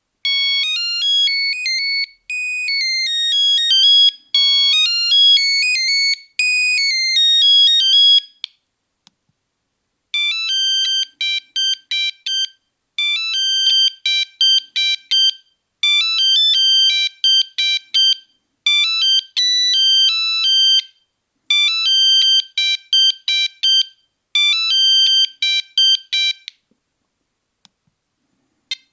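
Nokia 3310 playing monophonic ringtone melodies, one electronic note at a time. One tune of longer held notes runs for about eight seconds; after a pause of about a second and a half a second, quicker tune of short detached notes in clusters plays for about sixteen seconds.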